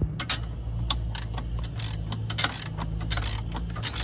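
Ratcheting 11/16-inch (17 mm) combination wrench clicking in short, irregular runs as a seat-mounting bolt is worked loose, over a steady low hum.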